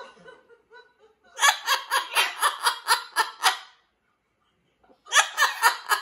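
Jubilee hybrid macaw imitating human laughter: a quick run of about a dozen 'ha' notes, a pause, then a shorter burst near the end.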